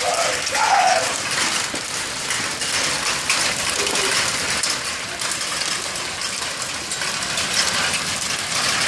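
Quarter-size hailstones falling hard and steadily, a dense rattle of sharp clicks and patters.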